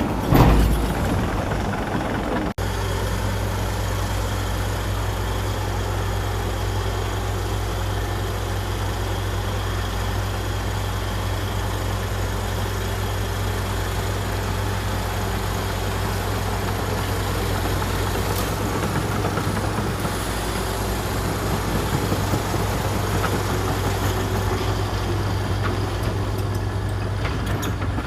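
Komatsu D61EX bulldozer's diesel engine running steadily, with a loud clank about half a second in.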